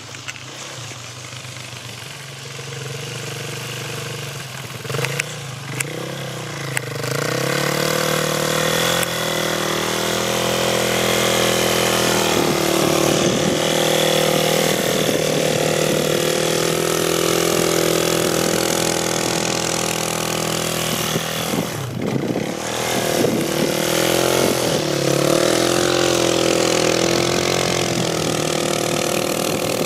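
Suzuki LTZ 400 quad's single-cylinder four-stroke engine, quiet at first, then held at high revs as the rear wheels spin and throw snow. About two-thirds of the way through the revs drop off briefly, then climb again.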